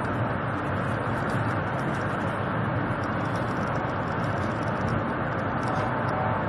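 Steady low noise inside the cabin of a high-speed bullet train running at speed.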